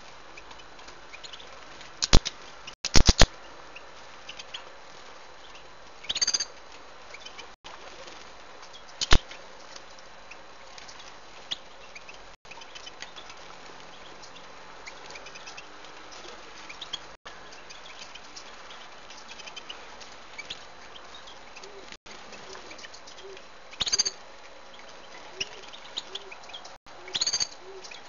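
Caged finches fluttering their wings as they bathe, with a few sharp clicks around two to three seconds in and again about nine seconds in. Brief high chirps come around six seconds, around twenty-four seconds and near the end.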